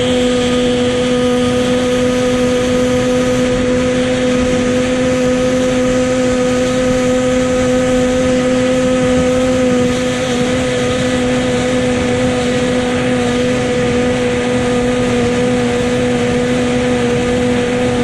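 Racing powerboat's engine running at steady high revs, holding one even pitch, with a slight waver about ten seconds in.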